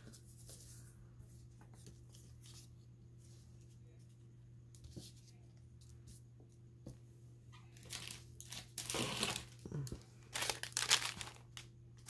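Paper craft materials being handled: a few light taps at first, then from about eight seconds in, several short bursts of paper crinkling and rustling.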